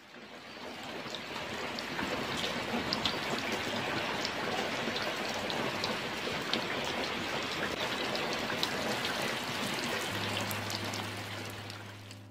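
Steady rain falling: an even hiss with scattered individual drops ticking, fading in over the first two seconds. A low steady hum comes in near the end.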